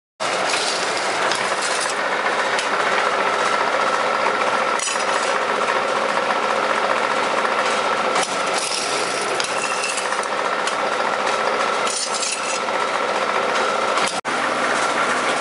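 Rubber solution applying and curling machine for tin can ends running: its electric motor and rotating chuck give a loud, steady mechanical whir with a thin high whine through it and a few sharp clicks. The noise starts abruptly just after the start and drops out briefly once near the end.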